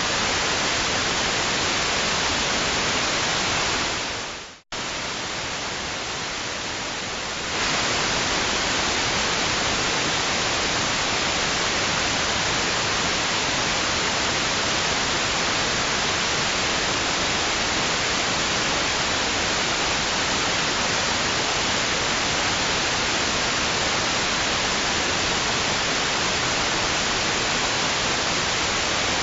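Steady, even white-noise hiss. About four seconds in it fades out to near silence, cuts back in quieter, and returns to full level about three seconds later.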